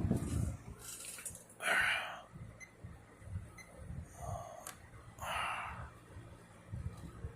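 1980s Patton Lauvery rotating-grill box fan running on its low speed, a faint steady motor hum. Three short breathy hisses stand out over it, about two, four and a half and five and a half seconds in, with a small click between the last two.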